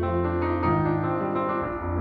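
Live jazz on piano and soprano saxophone: the piano plays full chords over deep bass notes that change about once a second, under a steady held note.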